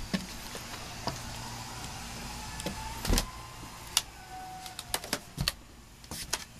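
Scattered short clicks and knocks over a steady hiss, the loudest about three seconds in: a dog's claws and paws scrabbling on a playground climbing wall.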